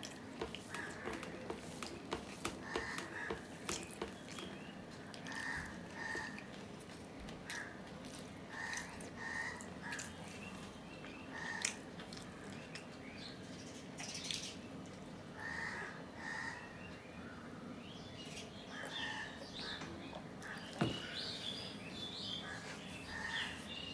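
Eating by hand from a steel plate: fingers mixing and squishing rice with mashed hilsa fish, with chewing and small clicks throughout. In the background a bird calls in short notes, often two at a time, again and again.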